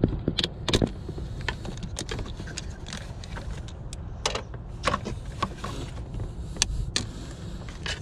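Scattered sharp clicks and light clatter as hoses, clamps and fittings around a car's heater valve are handled in the engine bay, over a low steady rumble.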